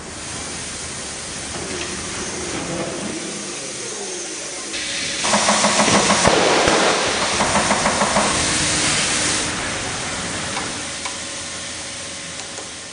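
Motorcycle tyre-changing workshop noise, with a loud burst of compressed-air hissing about five seconds in that lasts some four seconds, a fast, even rattle running through it.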